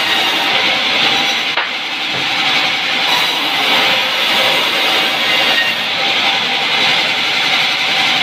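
Vertical band sawmill running and its blade cutting lengthwise through a log, a loud steady hiss and whine. There is one sharp knock about one and a half seconds in.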